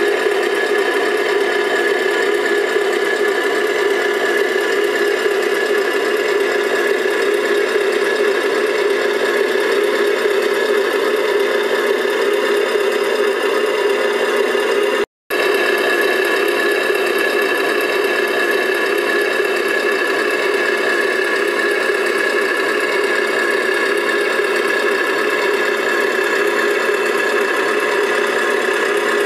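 Small electric drive of a 1/14-scale RC dump truck running steadily, a constant mechanical whirr with a steady whine, cutting out for a split second about halfway through.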